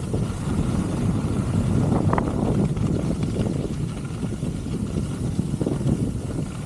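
Skis running fast over groomed snow with wind rushing over the camera microphone: a steady low rumble.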